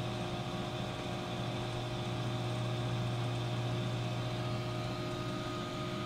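Steady low machine hum of background equipment, with a few faint steady higher tones and no sweep or test tone.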